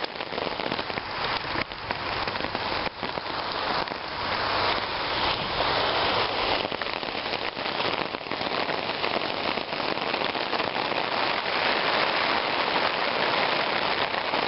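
Spray from a garden hose falling on a hammock tarp, heard from underneath the fabric: a dense, steady rain-like hiss with many scattered drop hits.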